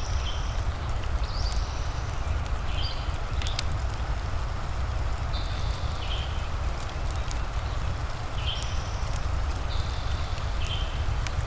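Fireplace crackling with scattered sharp pops over a steady low rumble and an even rain-like hiss. A short, high two-note call, the second note lower, recurs every few seconds.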